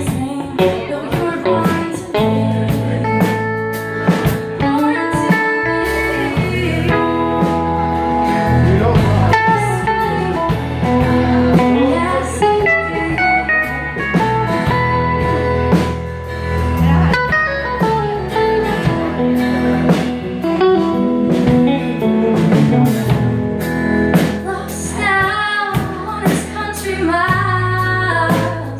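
Live band playing a song: a woman sings lead over strummed acoustic guitar, electric guitar, bass guitar and a drum kit.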